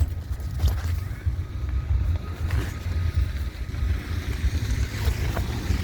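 Wind buffeting the microphone: a low, unevenly pulsing rumble.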